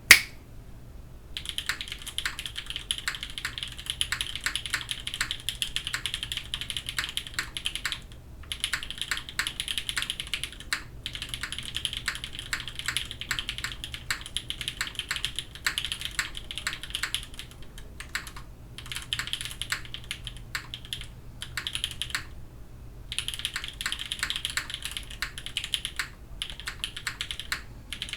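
Typing on a Krush65 mechanical keyboard, o-ring mounted with an aluminium plate and Milky Raccoon switches: fast runs of key clacks with a few short breaks in the typing.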